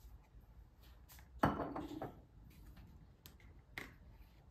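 A few light clicks and one sharper knock about a second and a half in, as a small craft-paint jar and its screw lid are handled on a counter.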